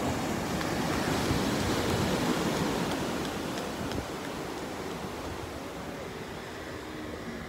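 Small ocean waves breaking and washing up onto a sandy beach, the surf swelling over the first few seconds and then easing off.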